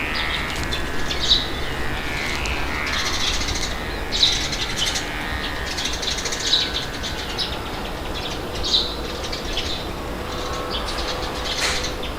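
Birds chirping, with short high calls repeating every second or so, over a steady low rumble of wind.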